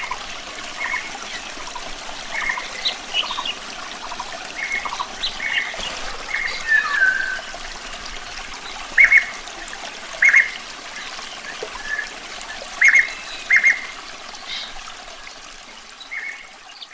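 Running water trickling steadily, with a bird calling over it in short, repeated chirps, four of them louder than the rest between about nine and fourteen seconds in.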